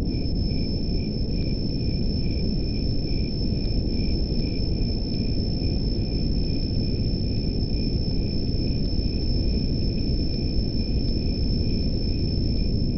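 Crickets chirping in a night ambience: a steady high trill over a lower chirp pulsing about three times a second, with a constant low hiss underneath.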